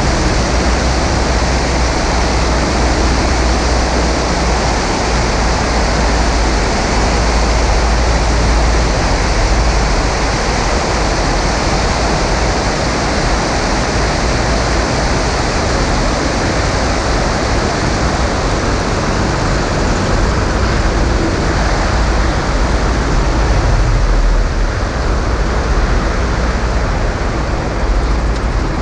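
Steady rush of wind and airflow on a camera mounted under the wing of a Maule M5-180C light plane, with heavy low buffeting, as the plane comes in low over a snow runway to touch down.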